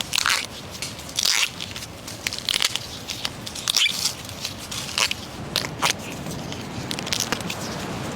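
Irregular crisp snaps and crackles as tender clump-bamboo shoots are broken off by hand, about a dozen sharp cracks spread unevenly.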